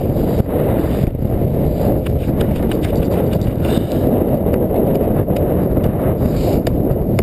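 Wind buffeting a GoPro's microphone as a dense, steady low rumble. Irregular knocks of footsteps and jolts come through as the wearer moves over grass tussocks.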